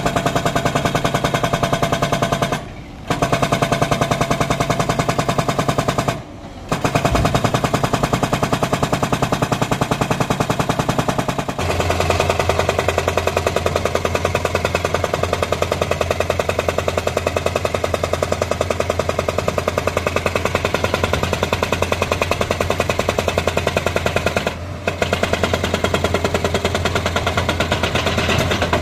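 JCB excavator's hydraulic rock breaker hammering a stone boulder in rapid, even blows, stopping briefly three times. About twelve seconds in, a steady low engine hum is heard beneath the blows.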